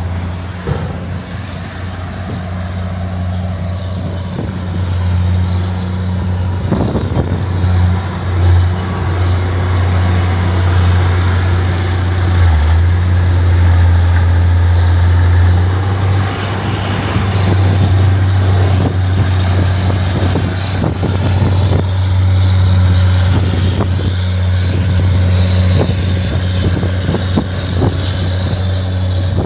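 Heavy diesel farm machinery running steadily and loudly, a deep, even engine drone.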